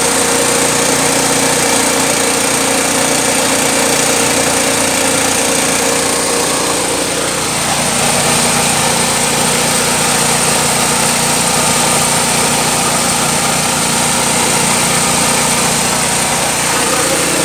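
Small petrol engine running steadily while driving a feed pellet machine, its pitch dropping a little about seven seconds in and then holding steady again.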